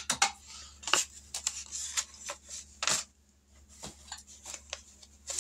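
Paper being handled: irregular rustling and sharp crackles as savings-challenge sheets are shuffled and set aside.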